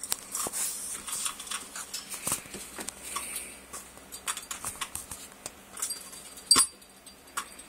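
Irregular light clicks and taps from a blue-crowned conure's beak and feet on its hanging toys, a clear plastic ball and a small bell on a chain, with a few soft rustles in between.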